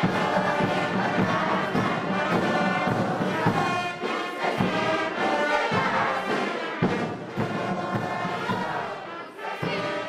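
Music with brass instruments, sustained pitched notes playing continuously.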